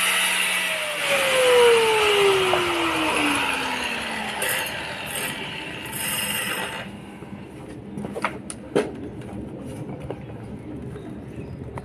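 An angle grinder's motor whining down steadily in pitch over about four seconds after being switched off, amid loud hiss that cuts off about seven seconds in. A few sharp metallic clinks follow.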